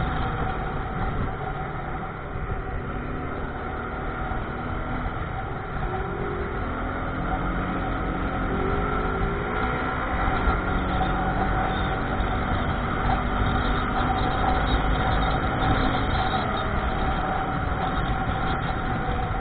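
A vehicle engine running steadily, a low rumble with a steady whine over it.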